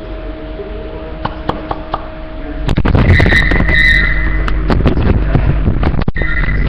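Cats fighting: about two and a half seconds in, loud scuffling and a high, held screech break out, stop sharply near the end, then the screech resumes.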